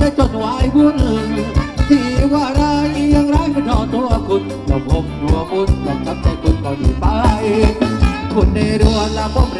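Live Thai ramwong dance band playing loudly through big PA speakers: a steady drum beat under keyboard melody, with singing.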